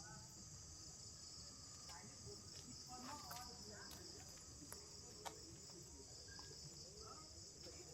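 Faint, steady, high-pitched chorus of crickets and other insects, with a few soft clicks.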